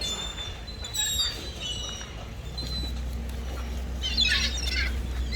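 A flock of seagulls calling: short, high, falling cries scattered through the first couple of seconds, then a dense burst of overlapping calls about four seconds in, over a low steady rumble.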